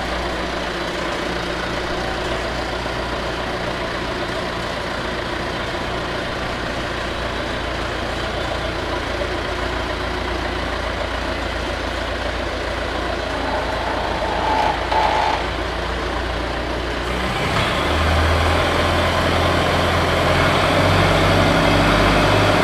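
Allis-Chalmers forklift engine running at a steady idle, then revving up and growing louder in the last few seconds as the forklift is driven.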